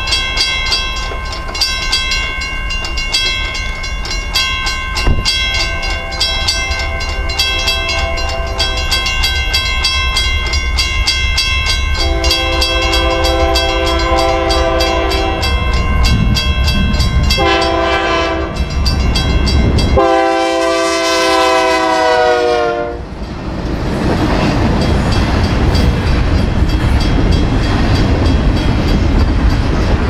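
Railroad crossing bell ringing steadily while an approaching locomotive's air horn sounds the grade-crossing signal: long, long, short, long. The last blast is the loudest and drops in pitch as the locomotive reaches the crossing. The rumble and clatter of the train rolling through the crossing follows.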